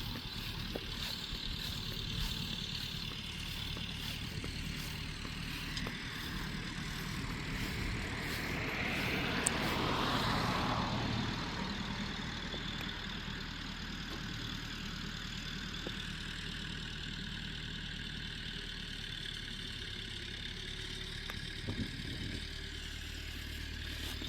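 Engine idling steadily, with a vehicle driving past about ten seconds in, its sound swelling and then fading.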